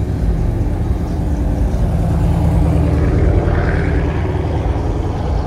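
Car engine running steadily, with a slight swell in level about halfway through.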